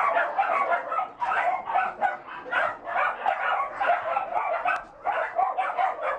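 Dogs barking and yapping without pause, short barks coming several times a second and overlapping.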